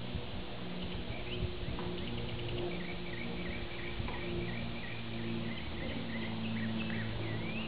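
Outdoor ambience: a rapid run of small high chirps, about four a second, from a bird or insect, over a low steady hum.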